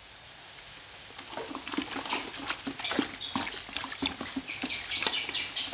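Ceramic plate rinsed by hand in a plastic bucket of water: water sloshing and splashing, with short clicks and high squeaks of hands rubbing the wet plate. It starts about a second in.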